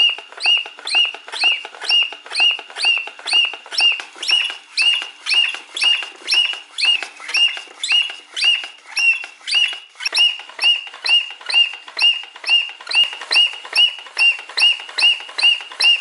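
Paper bird-box automaton tweeting as its crank-driven bellows pump: short whistled chirps repeating steadily about twice a second.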